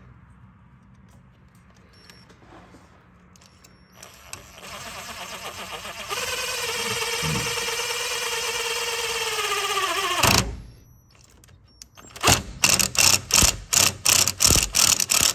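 DeWalt cordless driver sinking a self-tapping screw through an aluminum bracket into the radiator support. The motor whines for about six seconds, its pitch sagging slightly as the screw draws tight, then stops suddenly. A couple of seconds later comes a quick run of short, sharp bursts, about three a second.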